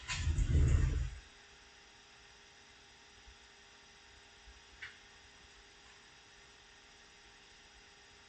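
Faint steady electrical hum of a quiet room. A brief low rumble comes in the first second, and there is one faint click near the middle.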